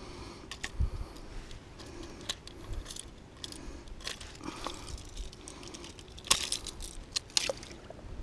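Metal unhooking forceps clicking and clinking against a lure and its hooks while unhooking a pike, a string of sharp, irregular clicks with a few louder ones near the end.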